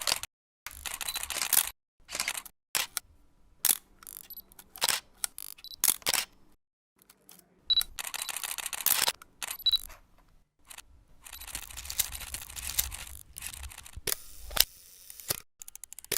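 Camera sound effects: a series of shutter clicks and short mechanical rattles like a film advance, separated by abrupt silent gaps. Two short high beeps come about a third and halfway through.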